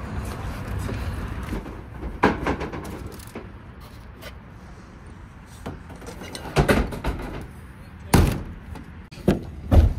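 A series of knocks and thumps as cardboard concrete-form tubes are handled into a pickup's bed and the camper shell's rear glass hatch is worked open and shut. The loudest thumps come near the end.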